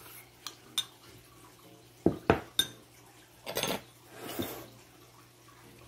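Metal spoon clinking and scraping against a ceramic bowl: a few light clicks, three sharp clinks about two seconds in, then two short scrapes.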